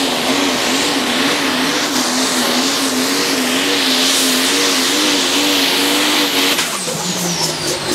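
Diesel pulling tractor's engine running flat out under load as it drags the weight-transfer sled, a steady, slightly wavering drone with a loud high hiss. Near the end the engine drops off and a high whistle falls steadily in pitch as it winds down.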